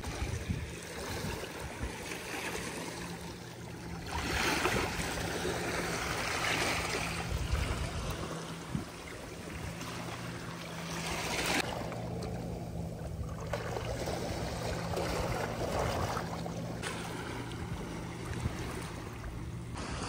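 Seaside ambience: waves washing, with wind buffeting the microphone in swells, over a low steady hum.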